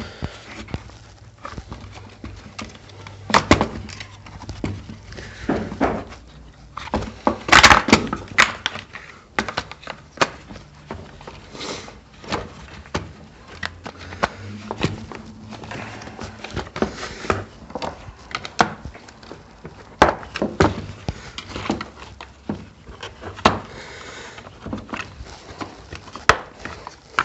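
Scattered clicks, knocks and thumps as a replacement Briggs & Stratton recoil starter is pushed and forced onto its snap-in clips, which resist going in. The hardest thump comes about eight seconds in.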